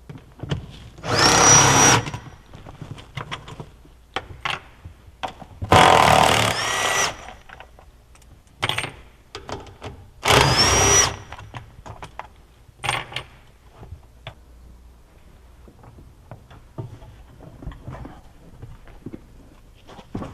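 Cordless power driver removing the floor-pan bolts of a John Deere E Series skid steer: three runs of about a second each, each spinning up at the start. Scattered clicks and metal knocks follow as the loosened bolts and parts are handled.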